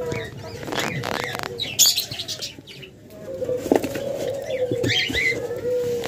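Diamond doves flapping and scuffling inside a cardboard box, in short bursts during the first two seconds, with a long drawn-out dove coo through the second half.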